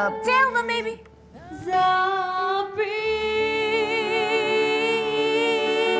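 A woman singing into a microphone, holding long notes with wide vibrato over a soft backing track, with a brief break about a second in.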